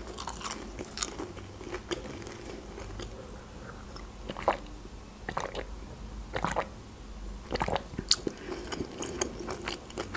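Close-miked chewing of crunchy fried food, scattered moist crunches and clicks, with a few swallows of water around the middle.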